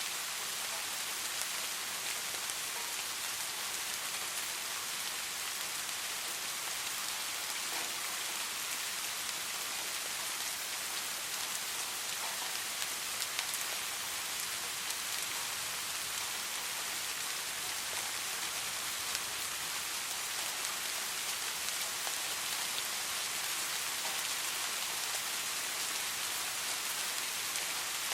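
Soft, steady rain falling, a continuous even hiss with faint scattered drop ticks.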